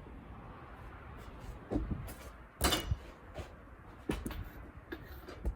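A few short knocks and clicks over a low, steady background noise, the loudest about halfway through, like objects being handled or set down.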